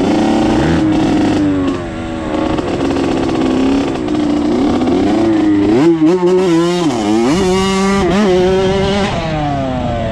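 Dirt bike engine running hard on a trail ride, its revs climbing and dropping over and over as the throttle is opened and closed, with several quick drops and rises in the second half.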